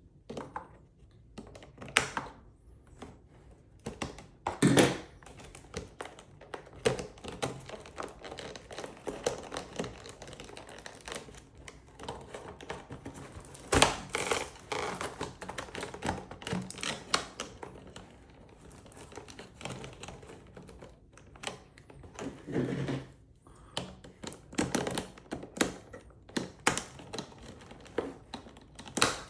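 Toy packaging being opened by hand: plastic and cardboard crinkling, with many irregular clicks, knocks and thumps.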